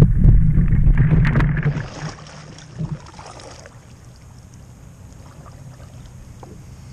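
Wire crab pot rattling and knocking as it is handled over a plastic bucket, with a heavy low rumble of wind on the microphone. About two seconds in this stops, leaving soft water noise and faint ticks from a kayak paddle.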